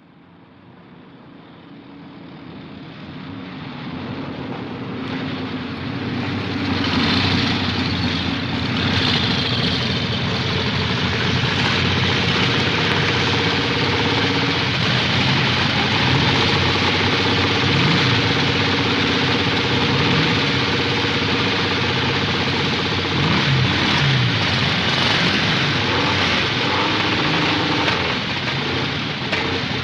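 Motorcycle engine running at a steady idle, fading up over the first several seconds and then holding level, with a few slight wavers in pitch later on.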